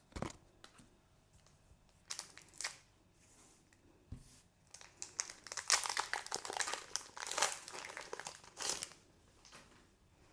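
Foil wrapper of a Pokémon card booster pack crinkling as it is handled and torn open, the crinkling densest from about five to nine seconds in.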